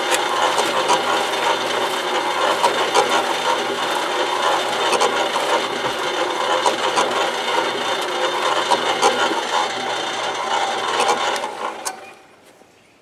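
Cement mixer turning a wire-mesh compost screening drum: a steady motor hum under a continuous rattle and clatter of compost debris tumbling in the drum. The sound stops about twelve seconds in.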